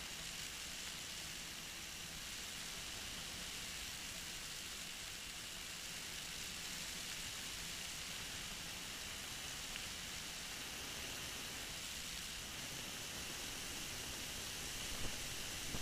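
Steady rushing noise of a flexwing microlight trike in cruise flight, wind and engine blended into an even hiss.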